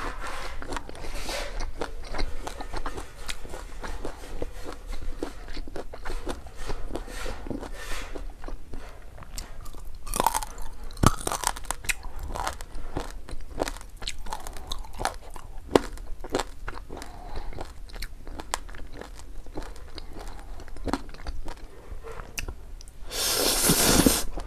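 Close-miked eating sounds: crisp crunching and chewing of crispy fried pork belly, many sharp crackles in a row. Near the end there is a loud slurp of spicy ramen noodles.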